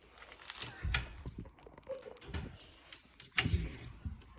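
Scattered light clicks and knocks of hand tools and BMX bike parts being handled during assembly, with a couple of low thumps, one about a second in and one near the end.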